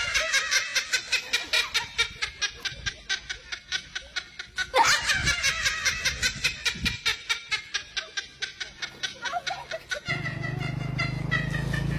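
Rapid, rhythmic laughter at about five pulses a second, starting over about five seconds in. Near the end it gives way to a steady low hum.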